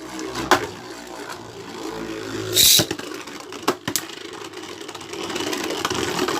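Beyblade spinning tops whirring in a plastic stadium, with sharp clacks as they strike each other and the walls. There is a short rasping burst about two and a half seconds in, and the whir grows steadier and louder near the end.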